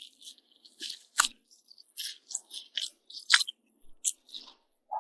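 Close-miked chewing of toast with fried egg: irregular crisp crunches and small wet mouth clicks, several a second.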